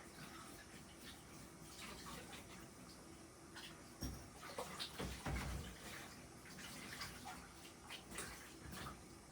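Washing up at a sink: running water with scattered clinks of dishes, and a cluster of louder knocks and clatter about four to six seconds in.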